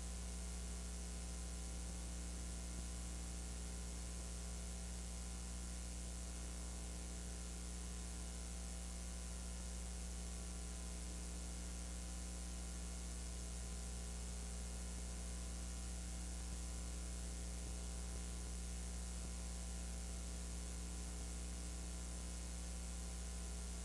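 Steady electrical hum with a constant hiss, unchanging throughout; no other sound.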